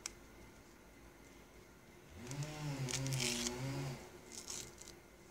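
A wordless voice humming or mumbling for about two seconds in the middle, with a rustling hiss on top. There is a sharp click at the start and a few light taps later.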